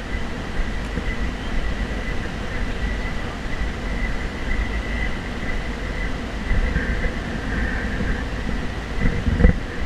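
Steady outdoor background noise with a heavy, uneven low rumble and a faint steady high tone. There are a few low thumps near the end.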